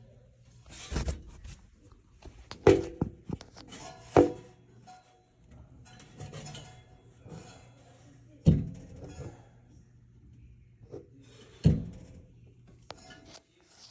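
HVAC system running with a steady low hum, broken every few seconds at uneven intervals by loud twangy metallic thunks that ring briefly. The owner suspects the blower.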